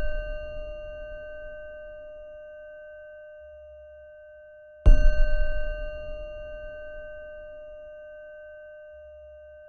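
Struck metal bell ringing with a long, slowly fading tone of several pitches; the ring of a strike just before is still dying away at the start, and it is struck again with a deep thud about five seconds in.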